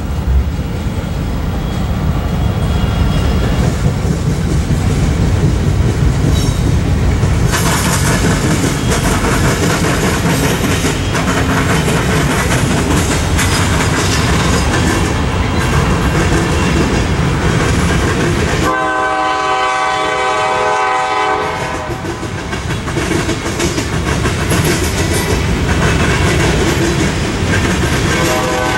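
CSX freight train passing: a steady rumble of locomotive and cars rolling on the rails, growing louder and harsher about a quarter of the way in. About two-thirds through, the locomotive's chime horn sounds for about three seconds, and it starts again near the end.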